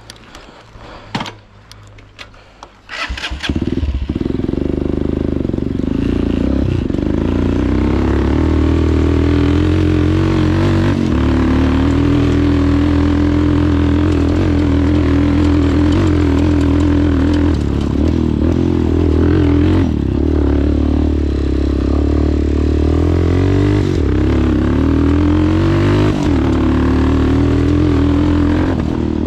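Off-road motorcycle engine starting after a few clicks about three seconds in, then running steadily as the bike is ridden along a rocky dirt track.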